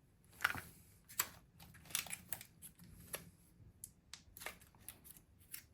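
Irregular small clicks and light scrapes of a tyre plug kit's metal insertion tool being handled and coated with lubricant from its pot.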